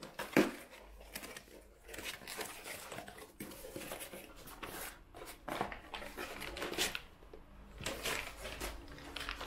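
Small cardboard shipping box being opened by hand: irregular rustling, scraping and tearing of cardboard and packing paper, with a sharp knock about half a second in.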